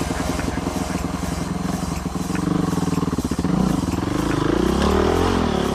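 Enduro motorcycle engine under the rider, running at low speed and then revving up and down over the second half, its pitch rising and falling with the throttle.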